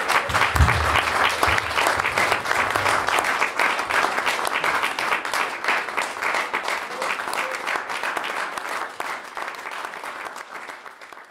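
Audience applauding, dense clapping that tapers off near the end, with a low thump about half a second in.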